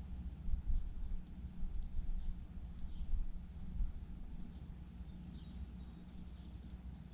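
Blackbirds calling: two thin, high whistles that slide down in pitch, a couple of seconds apart, then a few faint chips, over a steady low rumble.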